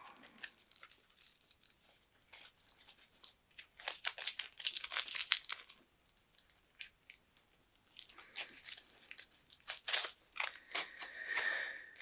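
Crinkling, rasping handling noise from fitting a coiled ground cable onto an anti-static wristband: two bouts of rapid clicks and scrapes with scattered ticks between.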